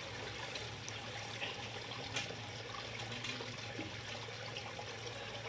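Steady trickle of running water, with a faint steady low hum underneath.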